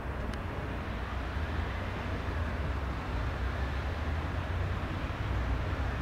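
Piper PA-46 350P's engine and propeller running steadily: a continuous low rumble with a hiss above it.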